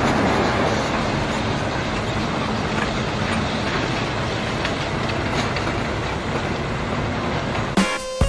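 Multi-trailer road train driving past: a steady noise of its engine and its many tyres and trailers on the road. Music comes in near the end.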